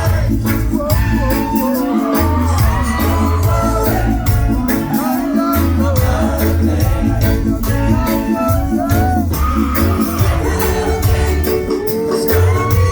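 Live reggae band playing with a lead singer over a heavy, pulsing bass line and steady percussion.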